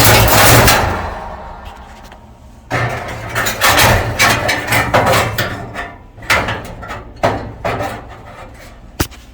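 Sheet metal rattling and knocking as a replacement heating element and its housing are handled and worked into an electric clothes dryer: a loud clatter at the start, a longer run of rattling a few seconds in, then a few single sharp knocks.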